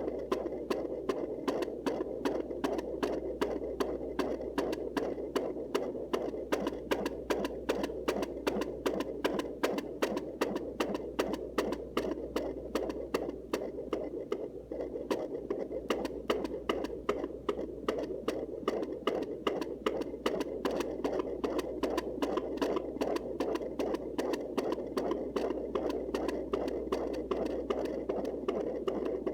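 Fetal heartbeat picked up by a Sonoline C home fetal Doppler and played through its speaker: a fast, even pulse of several beats a second over a steady hiss.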